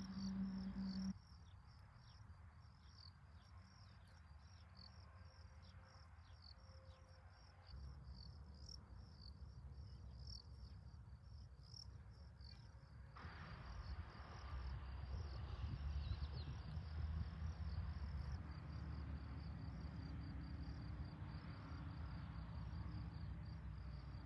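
Faint insects chirping in a rapid, steady series, over a low rumble that grows louder in the second half.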